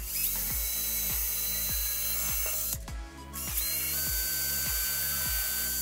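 Cordless drill with a thin bit drilling a small hole into a wooden block, running in two spells of about two and a half seconds with a short stop about three seconds in. The motor's high whine is slightly higher in pitch in the second run.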